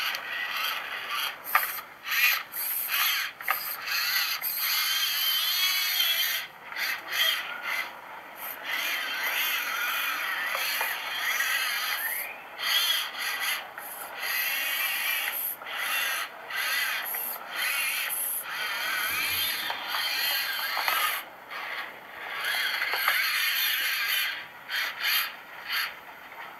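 Losi Micro 4x4 Trekker micro RC truck's electric motor and geared drivetrain whining in repeated stop-start bursts as the throttle is worked on and off, the pitch wavering up and down.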